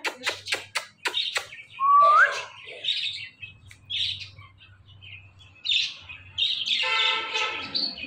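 Indian ringneck parakeet calling: a loud rising whistle about two seconds in, then short high chirps, and a longer harsh, raspy chattering call near the end. A quick run of kissing smacks comes first.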